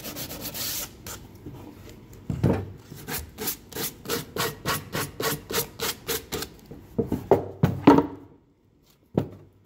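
Folded sandpaper rubbed by hand over the edges of a pine box to round them over: quick back-and-forth scraping strokes, about four or five a second, with a few louder strokes near the end. Then a short pause and one last stroke.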